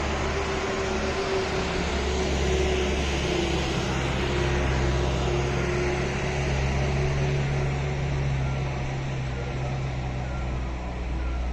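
Steady drone of a running road vehicle: engine hum and road noise, even throughout.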